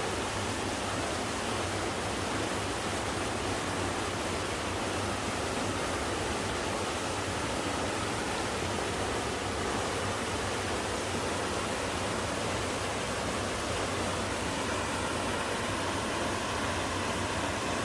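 Small mountain waterfall splashing and rushing steadily over rocks in a valley stream.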